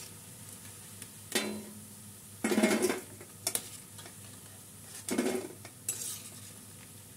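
Metal slotted spoon scraping and clinking against a kadhai and plate as fried moong-dal pakodis are lifted out of hot oil, with the oil sizzling underneath. The loudest clatters come about two and a half seconds in and again about five seconds in.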